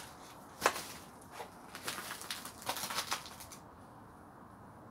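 Footsteps crunching and clicking over burnt rubble and debris: an irregular run of sharp crunches, the loudest about half a second in and a quicker cluster near the middle, then only faint hiss.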